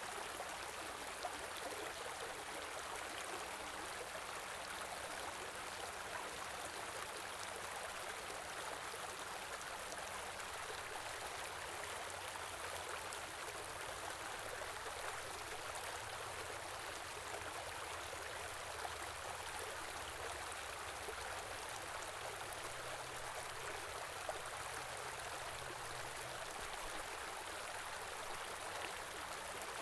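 Small river or stream flowing steadily, a continuous even rush of water.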